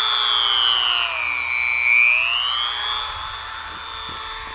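Vevor electric chainsaw sharpener, a high-speed rotary grinder with a 130-watt motor, spinning free with a high whine before it touches the chain. The pitch dips about a second and a half in and climbs back a second later.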